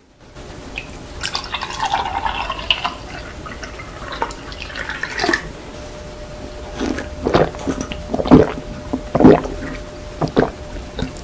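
Milk poured from a carton into a glass mug for about five seconds, the pouring sound rising in pitch as the mug fills. Then several gulps as the milk is drunk.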